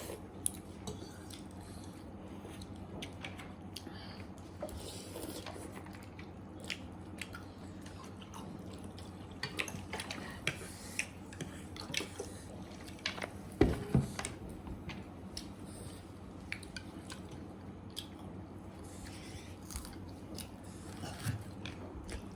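Close-miked mukbang eating sounds: a person chewing food with wet mouth noises and many small clicks. There is a louder double knock about fourteen seconds in.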